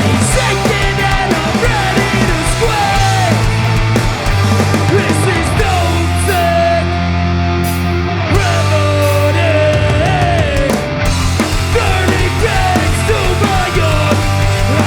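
Hardcore punk band playing loud and live: distorted electric guitars, bass and drums, with sliding guitar notes and the cymbals briefly dropping out about halfway.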